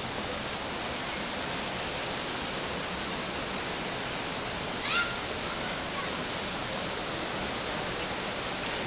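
Creek water rushing steadily over the falls and cascades beside the water mill. A brief high rising chirp cuts in about five seconds in.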